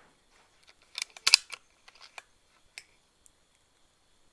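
PCP air rifle's action being cycled to load the next pellet after a shot: a quick run of sharp metallic clicks and clacks starting about a second in, the loudest pair near the middle, thinning out after.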